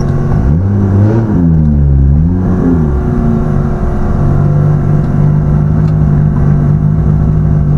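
Turbocharged 2JZ inline-six in a Lexus SC300 under way. The revs climb and drop twice in quick succession, then the engine settles into a steady drone at cruise.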